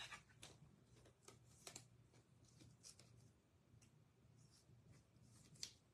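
Faint handling of baseball trading cards: a few soft slides and taps of cards over near silence, the most distinct one shortly before the end.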